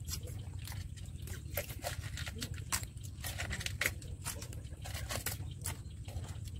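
Serving spoon scraping and clicking against a pot and plates as rice is dished out: many quick, irregular clicks and scrapes over a steady low rumble.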